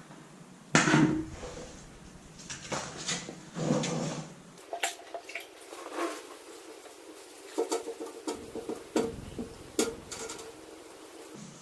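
Irregular knocks, clinks and short scraping noises from handling and cleaning a fire-damaged metal Snap-on toolbox.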